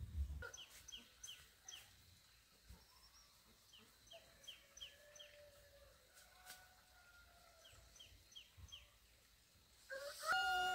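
Chickens calling: faint runs of three or four short falling cheeps, a few drawn-out calls in between, and a louder call near the end.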